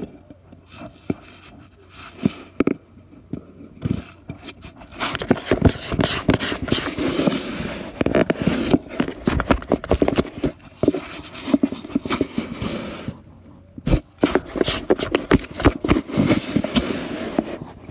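A cat scratching and rubbing right at the microphone: close, rough scraping and rustling with many sharp clicks, sparse at first, then dense, with a short break about three-quarters of the way through.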